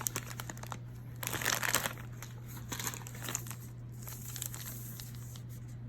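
Crinkly plastic snack packaging rustling in several short bursts as the packs are handled, over a faint steady low hum.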